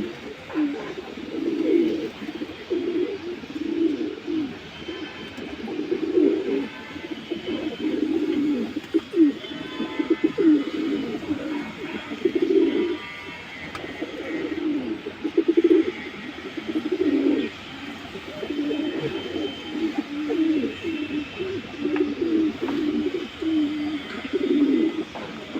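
Teddy pigeons cooing over and over, one low rolling coo after another with barely a pause.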